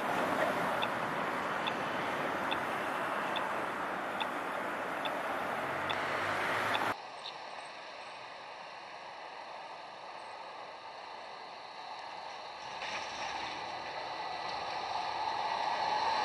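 City tram running on street track amid traffic noise, with a faint regular tick a little more than once a second. About seven seconds in the sound cuts to a quieter street, and near the end a second tram's running noise rises as it approaches.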